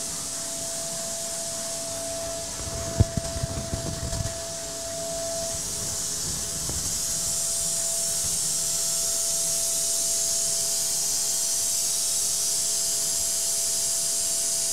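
DATRON Neo CNC milling machine cutting a shank on its rotary fourth axis: the spindle runs with a steady high tone over a steady hiss, and a short burst of sharp knocks and rattles comes about three seconds in. The hiss grows a little louder about six seconds in.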